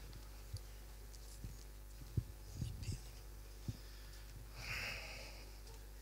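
Faint handling noise from a handheld microphone held by someone lying on a stage floor: a few soft, low bumps in the first four seconds, then a short breathy exhale into the mic about five seconds in.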